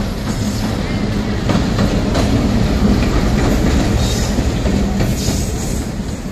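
Bangladesh Railway diesel locomotive moving alone past at close range: its engine runs with a steady low hum over wheel and rail noise, and a few wheel clicks over rail joints. It grows loudest in the middle as it draws level, then eases off.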